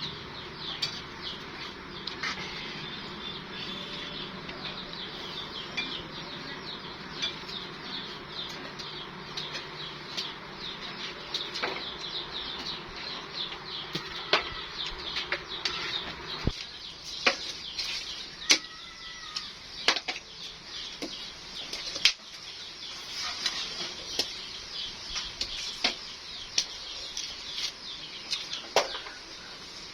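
Many small birds chirping rapidly and without pause, with scattered sharp clinks like utensils on dishes. A low steady hum underneath cuts off just past halfway.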